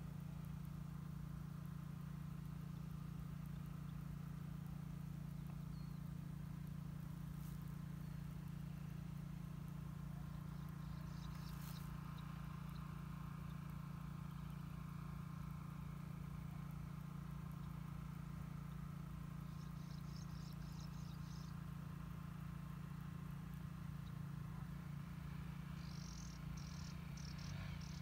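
Quiet rural outdoor ambience: a steady low hum underneath, with short bursts of high, pulsed insect chirping, once about halfway through and again near the end.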